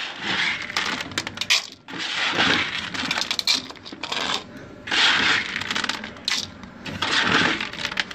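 Dry cat kibble scooped from a plastic bucket and poured into plastic bowls. The pellets rattle into the bowls in several separate pours, each about a second long.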